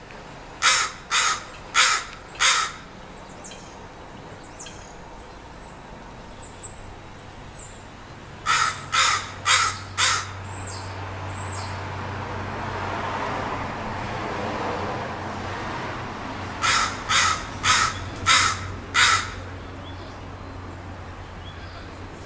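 A crow cawing in three bursts of four loud, evenly spaced caws, roughly eight seconds apart. Faint high chirps from small birds come between the first two bursts.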